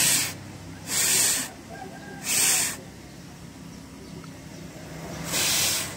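A person blowing four hard puffs of breath onto the small fan of a wind-powered LED strip light to spin it and light the LEDs. Each blow is a short hiss: three about a second apart, then one more after a longer pause near the end.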